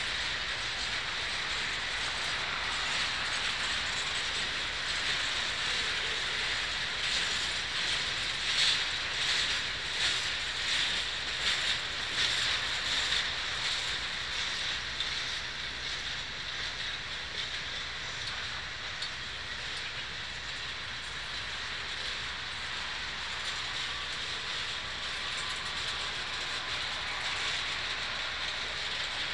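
Freight train's hopper and gondola cars rolling past: a steady rumble and hiss of steel wheels on rail, with a stretch of sharp wheel clacks in the middle.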